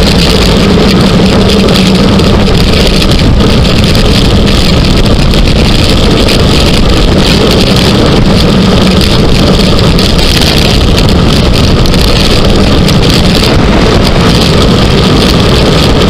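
Loud, steady wind buffeting the camera's microphone during a fast road-bike descent.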